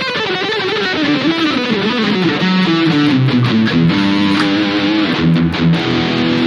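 Harley Benton Fusion electric guitar played with a distorted, high-gain tone: a run of single notes falling in pitch, then held chords.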